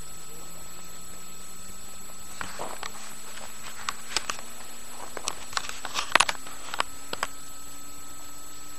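Footsteps on a wooden boardwalk: about a dozen irregular knocks and clicks, from about two and a half seconds in to past seven seconds, over a steady hiss.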